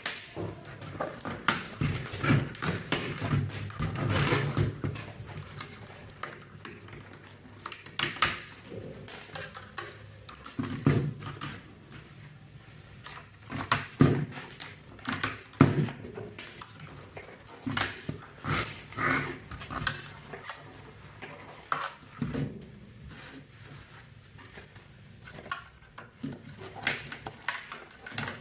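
Irregular plastic clicks and clatter of keycaps being handled on a mechanical keyboard.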